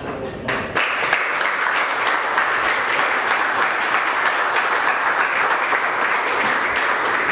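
A small audience applauding. A few scattered claps come first, then about a second in they swell into steady clapping from the whole room.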